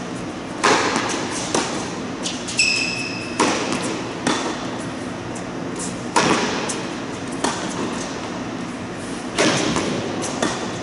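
Tennis ball struck by a racket and bouncing on a hard court, a string of sharp pops every second or two, each ringing out in the echo of a large indoor hall. A short high squeak sounds about two and a half seconds in.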